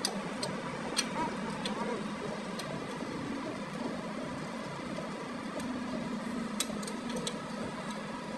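Steady mechanical background hum with a few scattered light clicks.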